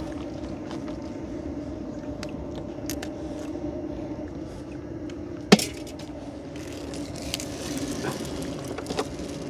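A small boat engine running with a steady hum, with scattered light clicks and one sharp knock about five and a half seconds in.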